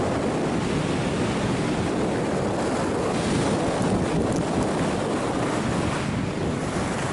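Steady rush of wind on the microphone of a camera carried by a skier going downhill at over 50 km/h, mixed with the hiss of skis running on packed snow.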